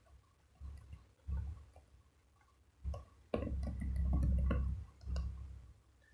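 Laptop keyboard keys clicking as a password is typed and entered at a login prompt: a few scattered single taps. About three and a half seconds in, a louder low rumble with clicks in it runs for over a second.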